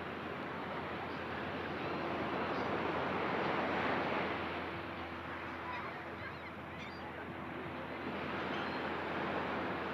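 Ocean surf washing onto the beach, swelling to a peak about four seconds in, easing off, then building again near the end.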